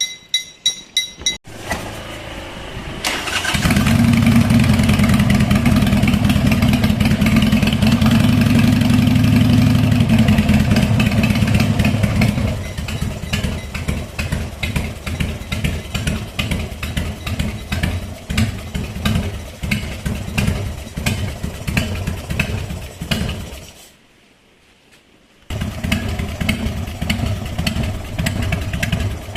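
Harley-Davidson Sportster V-twin engine being started: a few quick pulses, then it catches about three seconds in and runs at a loud, steady fast idle. About twelve seconds in it settles into an uneven, loping idle. It drops out briefly near the end and is running again by the last few seconds.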